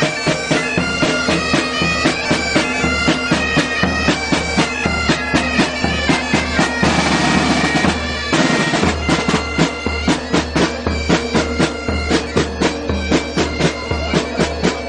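Music: a reedy wind-instrument melody over a steady low drone, with a regular beat about two to three times a second. A brief noisy wash, like a cymbal swell, comes about seven seconds in.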